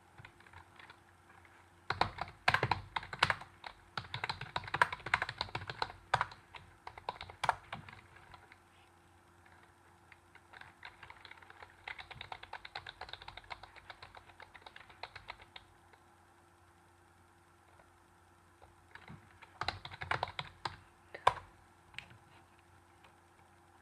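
Typing on a Dell computer keyboard: irregular bursts of key clicks with a few louder keystrokes, a stretch of lighter rapid typing in the middle, then a pause before a final short burst.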